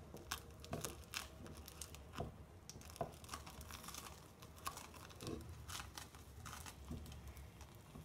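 Faint, irregular crackling and clicking from a nonstick pan as a folded soufflé omelette cooks in a little oil over a very low gas flame.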